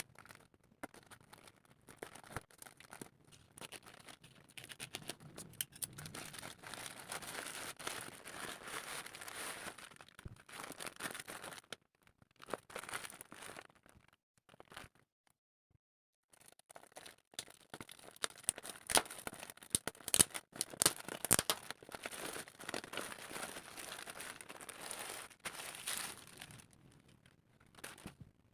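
Packaging being handled and opened: irregular crinkling and rustling with some tearing, pausing twice, and sharper snaps and clicks about two-thirds of the way through.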